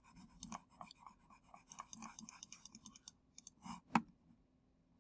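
Computer pointing device in use: a run of small scratchy ticks as eraser strokes are worked in, then a single sharp click about four seconds in as a layer is picked in the Layers panel.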